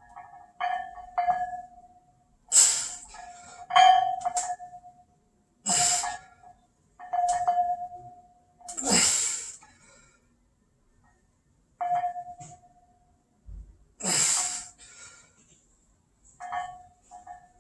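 Loaded barbell and its weight plates ringing like a clear bell with each bench-press rep. Each ring is at the same pitch and fades out, and it comes again and again, about every one to two seconds, with a longer gap in the middle.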